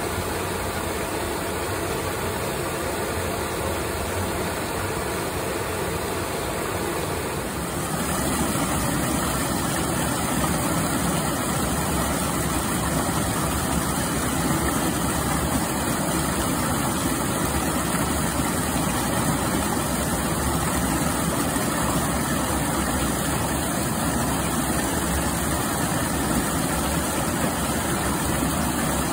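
Steady rush of a small waterfall and mountain stream cascading over rocks. About eight seconds in it turns louder and fuller as white water tumbles close by over mossy boulders.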